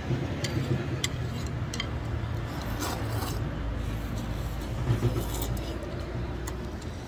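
A person loudly slurping knife-cut noodles in spicy broth, with two long noisy slurps about three and five seconds in and a few light clicks between.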